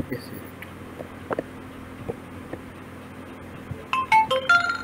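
A steady low hum with a few faint clicks, then near the end a quick run of short electronic tones stepping up and down in pitch, like a phone or notification melody.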